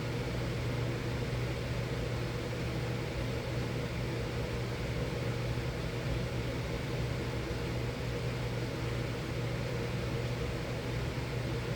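Miller E3 furnace running steadily: the blower's even rush of air over a constant low hum.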